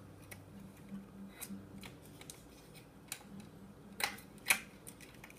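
Small plastic clicks and handling noises of fingers working the ribbon-cable connector on an LED light's driver circuit board, with two sharper clicks about four seconds in.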